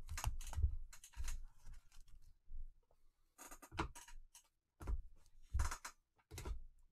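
Rigid plastic toploaders holding trading cards clicking and knocking against each other as gloved hands flip through a stack, an irregular series of short clicks and taps.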